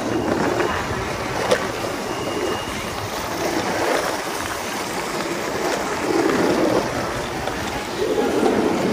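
Steady rushing noise of wind on the microphone and longboard wheels rolling on city asphalt, swelling and easing every few seconds, with one sharp click about a second and a half in.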